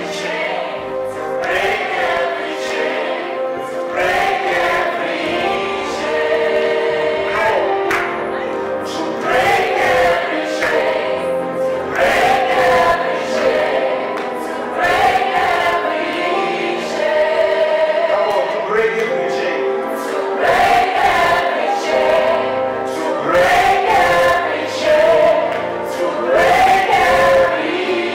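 Gospel worship song: a male lead singer with a backing vocal group, over sustained keyboard chords.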